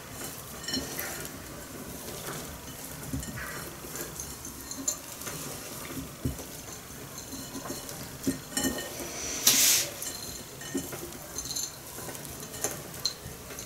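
Chopped nuts rustling and clicking against a plate as date-paste balls are rolled in them by hand: scattered small ticks and crackles, with a brief louder rustle about halfway through.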